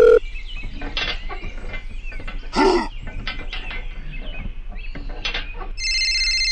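Dubbed cartoon sound effects. A telephone dial tone cuts off right at the start, followed by a string of quick clicks and chirps with a short cry in the middle. Near the end comes a steady high electronic tone like a phone ringing.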